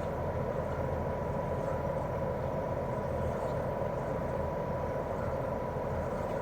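Daikin R28RMV mini-split outdoor unit running steadily in cooling mode: its propeller fan and twin-cylinder swing compressor give a constant hum and whoosh with a thin steady whine.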